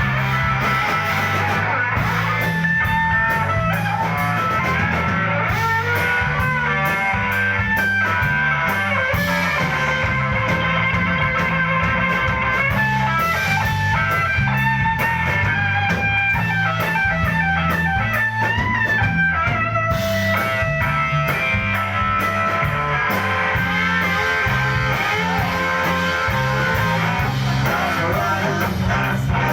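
Live rock band playing an instrumental passage: an electric guitar lead with bending, sliding notes over a repeating bass line and drums.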